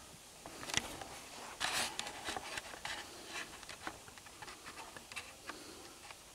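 Dry leaf litter and twigs rustling and crackling in scattered sharp snaps, loudest about a second in and again around two seconds.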